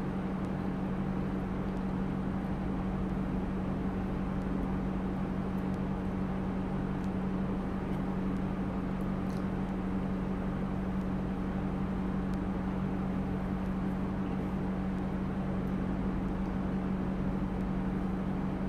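A steady, unchanging machine hum with a constant low tone, with only a couple of faint clicks.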